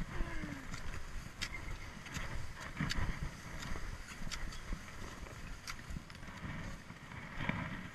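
Cross-country skis swishing over snow, with ski poles planted in a rough rhythm that gives sharp clicks every second or so, over a low rumble of wind on the microphone.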